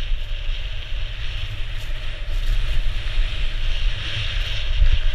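Wind buffeting the microphone of a GoPro action camera on a skier moving fast downhill, a steady low rumble, with a hiss of skis sliding over snow.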